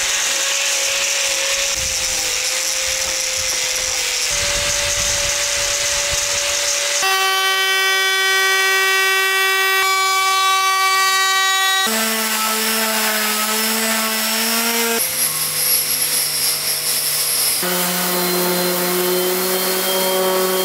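Handheld electric power tools working purple heart hardwood, one after another: an angle grinder with a sanding disc, a DeWalt trim router, and a random orbital sander. Each runs with a steady motor whine, and the pitch changes abruptly about every three to five seconds as one tool gives way to the next.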